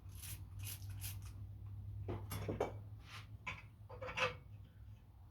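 Steel thread tap scraping and grinding in short, irregular strokes as it is turned to recut the damaged threads in the end of a Honda GX270 crankshaft, shaving out metal. The strongest strokes come about two seconds in and again near the end.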